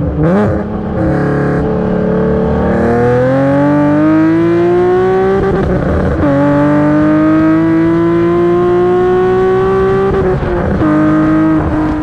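Nissan 370Z's 3.7-litre VQ37 V6 heard through PPE long-tube headers and a Greddy Evo GT catback exhaust, accelerating hard under way. The exhaust note climbs in pitch, drops with an upshift about five and a half seconds in, climbs again, and drops with a second upshift near the end.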